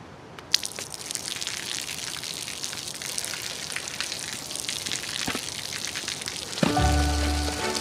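Rain falling steadily on a pavement, a hiss full of small drop ticks. Near the end, music with a low bass comes in over it.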